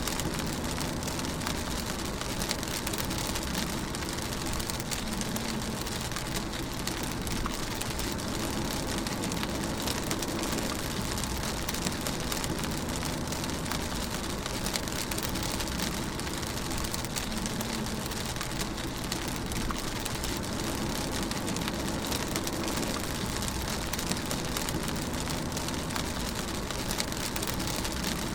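Steady rain falling on a moving car, with many small drop ticks over a low drone of tyres and engine that swells and fades slowly.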